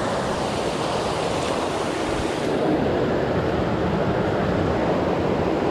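Waterfall pouring close by: a steady, loud rush of falling water.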